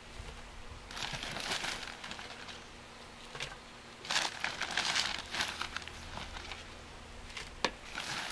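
Dry peat-based potting mix being scooped with a plastic container out of its plastic bale bag and tipped into a pot: crinkling of the bag and the rustle of the loose mix in a few bursts, with one sharp click near the end.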